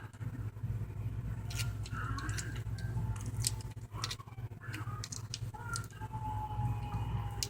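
Tape being pulled off the roll and wrapped around the wires of a homemade aux cable: scattered small clicks and crinkles of handling, with a short thin squeal of tape peeling about six seconds in, over a low steady hum.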